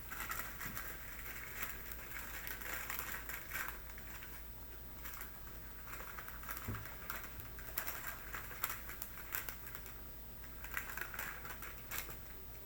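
Sterile glove package being opened and handled: soft, faint rustling of the paper wrapper with scattered light clicks and taps.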